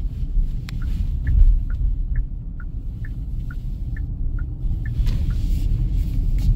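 Genesis GV80 turn-signal indicator ticking in the cabin, a steady tick-tock alternating between two pitches about two to three times a second, stopping a little after five seconds in, over the low rumble of the moving car.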